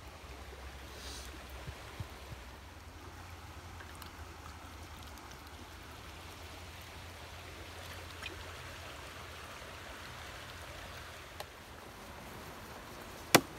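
Steady flowing river water, with low wind rumble on the microphone. One sharp knock near the end is the loudest sound.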